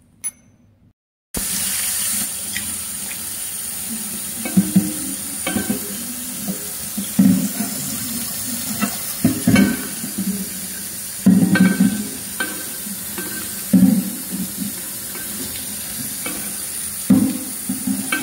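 Kitchen tap running into a sink, starting suddenly about a second in, while a glass baking dish is scrubbed with a sponge, giving short rubbing and knocking sounds every second or two.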